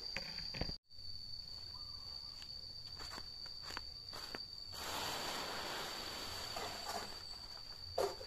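Dry fallen leaves crackling and rustling as they are scooped up by hand from a pile, loudest for a couple of seconds about halfway through, with a few footsteps and a sharp crack near the end. A steady high insect drone runs underneath.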